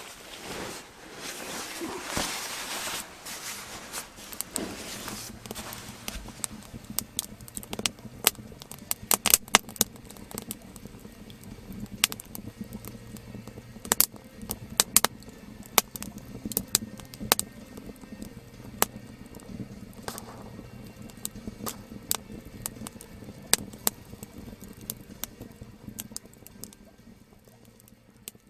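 Soft background music with a steady low drone, under many irregular sharp crackles and clicks. Rustling fills the first few seconds.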